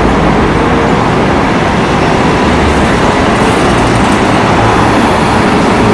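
Bus engine running with steady road and traffic noise, played as a sound effect for a toy double-decker bus.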